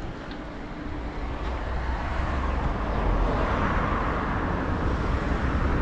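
A motor vehicle going by on the road: a rushing engine-and-tyre noise that grows louder and then holds, over a low rumble.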